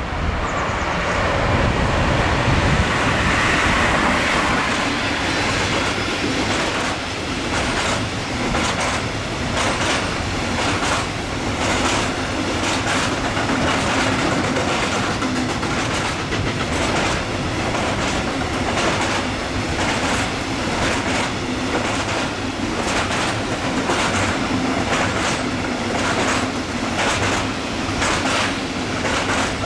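A long freight train of covered hopper wagons passing close by, with a rushing swell as it arrives. Then a steady, rhythmic clickety-clack of wagon wheels over the rail joints as wagon after wagon goes by.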